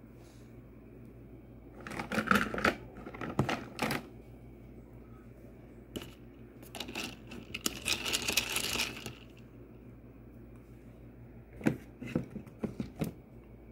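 Small kitchen items, pots, lids and utensils, clattering and clicking as they are handled, in three bursts of rattles with the longest, busiest one in the middle.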